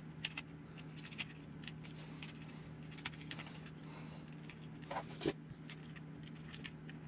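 Light clicks and taps of small plastic and metal parts being handled on an RC buggy chassis, with a louder pair of clicks about five seconds in, over a steady low hum.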